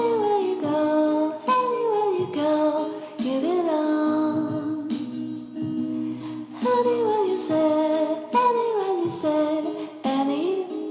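Background music with a melodic singing voice over a steady accompaniment; the sung phrase repeats about halfway through.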